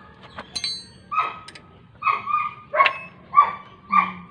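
A dog barking repeatedly: five short barks in a steady run, about one every two-thirds of a second. About half a second in there is a brief high metallic clink.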